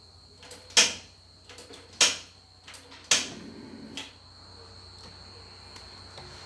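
Gas stove's push-and-turn igniter clicking three times, about a second apart, as the burner is lit under a wok. The stove is old and hard to light.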